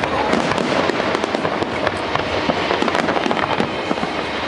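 Fireworks display: a dense, continuous crackling and popping of many small bursts, with no pause.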